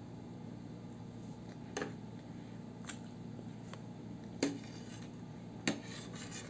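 Metal spoon and fork clinking and scraping against a plate while eating, a handful of separate clinks with the loudest about four and a half seconds in.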